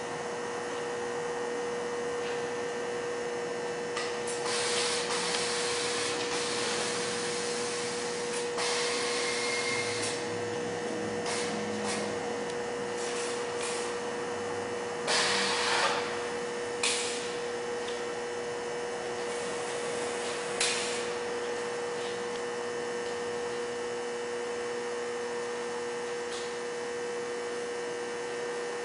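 Ergonomic lift-assist manipulator with a gripper attachment working: bursts of air hissing as the gripper and arm are operated, the loudest about halfway through, with a few short clicks. A steady hum runs underneath.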